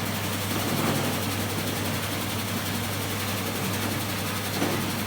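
Chili-cutting machine running steadily, its motor giving a constant hum under a whirring noise.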